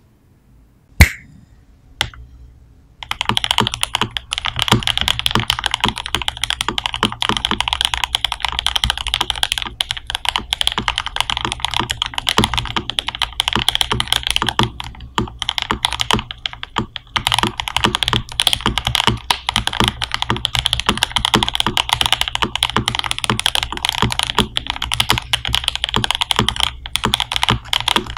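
Typing on a Rama Works M65-B custom mechanical keyboard with lubed JWK Noir Rose linear switches, GMK keycaps and an aluminium plate. The keystrokes are fast and continuous, starting about three seconds in after a single sharp knock about a second in. The board has a muted, hollow sound.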